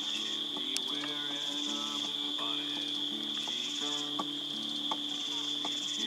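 Crickets chirping in a steady, high-pitched chorus, with a second insect's faster pulsing trill coming and going above it. A few sharp pops from a wood campfire cut through.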